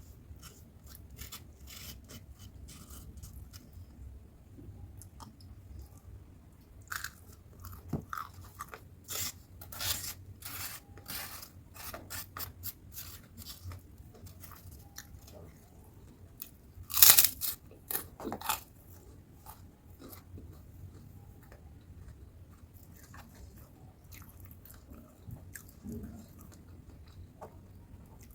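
A person chewing and crunching crisp food, with a run of sharp crunchy bites through the middle, the loudest a little past halfway, and softer chewing at the start and end.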